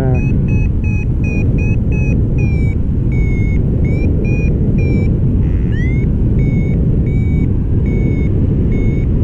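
Paragliding variometer sounding climb beeps, about three a second at first and slowing to about two a second as their pitch drops slightly, with one rising chirp about six seconds in: the glider is rising in a thermal, with the climb easing off. Under it, a loud steady rush of wind over the microphone in flight.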